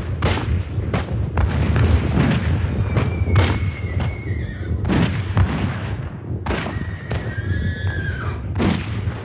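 Battle sound effects: scattered gunshots over a steady low rumble, with horses whinnying twice.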